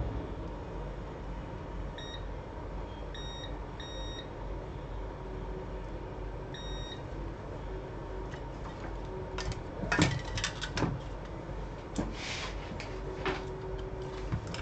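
Several short, high electronic beeps from a piece of bench equipment, over a steady electrical hum. Near the end come a handful of sharp clicks and knocks, the loudest sounds here.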